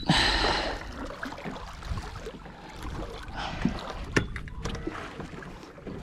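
Water splashing and sloshing around a small boat, loudest right at the start, with a few sharp knocks against the hull about three and a half to four seconds in.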